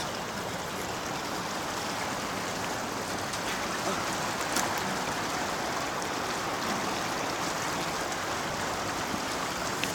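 Water rushing steadily through a narrow walled channel and under a bridge arch.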